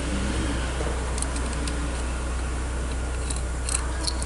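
A few light, sharp clicks and ticks of steering-column parts being handled and taken apart on a workbench, over a steady low hum.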